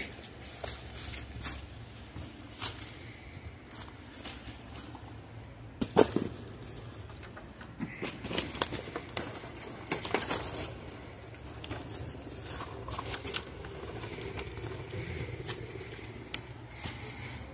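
Footsteps crunching through dry, tangled brush and dead branches, with twigs snapping and crackling irregularly; one loud snap about six seconds in.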